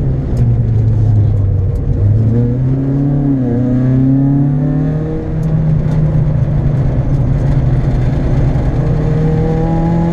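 Citroën Saxo VTS four-cylinder engine pulling hard on track, heard from inside the cabin; the revs dip briefly about three and a half seconds in, then climb steadily through the second half.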